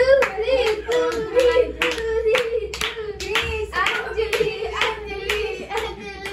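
Hand clapping, about three claps a second, with a voice singing a drawn-out line along with it.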